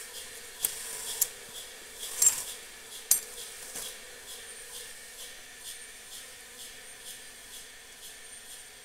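A hand breaking and scraping honeycomb and splintered wood inside a freshly chopped-open hollow tree trunk: a few sharp cracks and clicks in the first three seconds, then fainter ticks. Bees hum faintly throughout.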